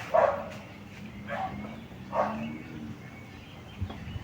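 A dog barking three times, the first bark the loudest, over a steady low hum.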